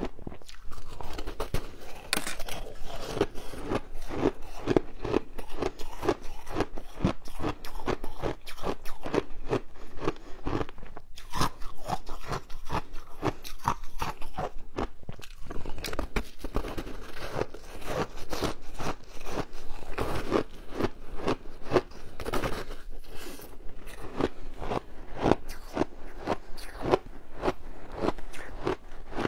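Teeth biting off and chewing a chunk of colourful frozen ice, a dense run of hard crunches several times a second, with a brief pause about eleven seconds in.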